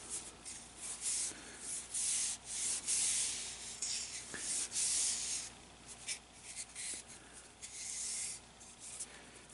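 A cloth wiping finishing oil onto a spalted maple wooden spoon, in short uneven rubbing strokes about one or two a second.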